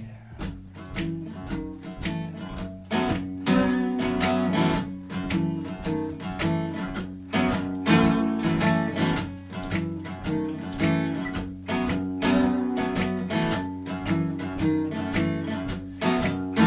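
Acoustic guitar strummed in a steady rhythm during an instrumental break in a song, with no singing.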